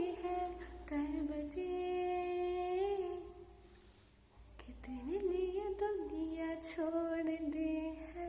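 A woman humming a slow melody unaccompanied, in long held notes that bend gently, with a short pause near the middle.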